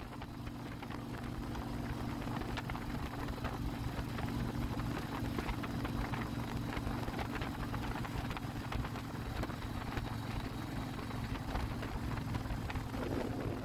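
Harley-Davidson motorcycle's V-twin engine running steadily, its pitch holding even without revving.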